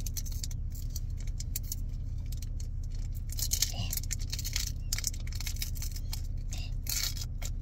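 Foil wrapper of a Pokémon card booster pack crinkling and rustling in quick, irregular bursts as fingers pick and tug at a pack that resists opening, over a steady low hum.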